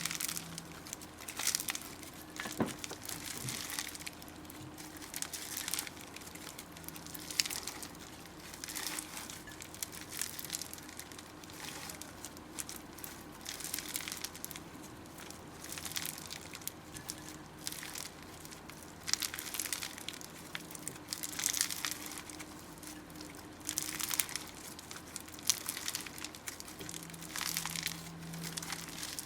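Slime being squeezed and worked by hand, giving irregular crackling, squishing pops in quick, uneven clusters.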